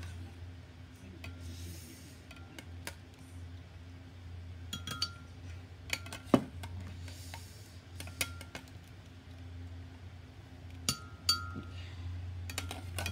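Metal slotted ladle clinking against an aluminium saucepan and a glass blender jar as boiled potatoes are scooped out, drained and dropped in: scattered sharp clinks with short ringing, the loudest about halfway through. A steady low hum runs underneath.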